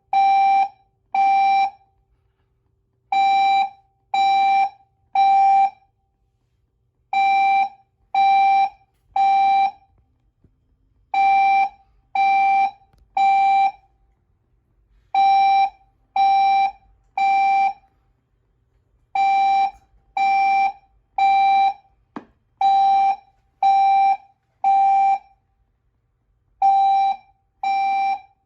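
Building fire alarm horn sounding the temporal-three evacuation pattern: three equal half-second tones about a second apart, then a pause, repeating every four seconds. The tone is steady and buzzy.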